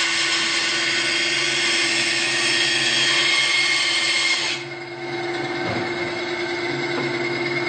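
SKIL 3386-01 9-inch band saw cutting freehand through a Douglas fir 2x4 with a loud, steady hiss over the motor's hum, not slowing under the feed. About four and a half seconds in the cut ends and the hiss drops away, leaving the saw running unloaded with a steady hum.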